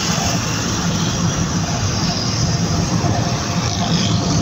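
Steady road and engine noise heard from inside a moving vehicle.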